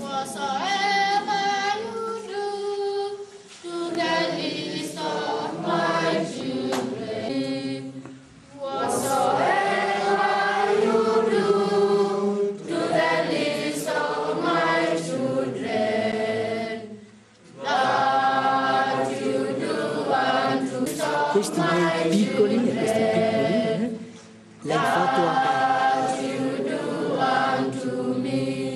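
Children's choir singing together, in phrases broken by three short pauses.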